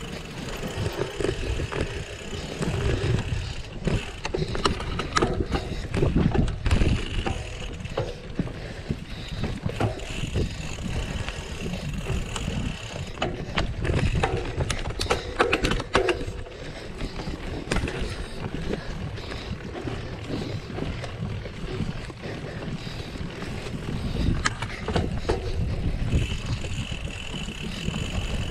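Mountain bike ridden over rough trail: steady tyre rumble and wind on the microphone, with frequent short rattles and knocks as it goes over bumps.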